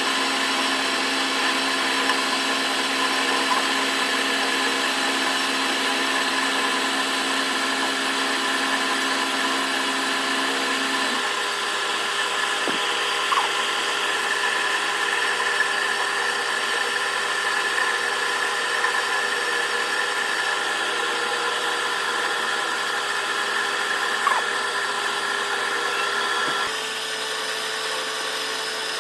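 A machine running steadily with a mix of steady tones. Its sound shifts about a third of the way in and again near the end, where it drops slightly.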